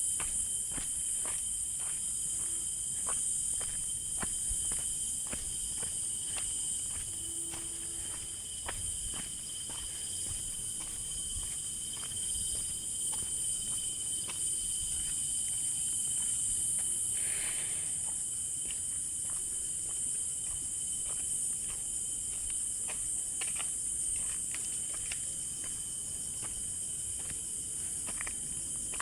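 A steady, high-pitched drone of insects calling, with footsteps about twice a second over it.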